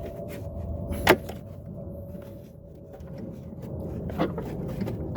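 Handling noises from work on a lawn mower: a sharp click about a second in and a few lighter knocks near the end, over a steady low rumble.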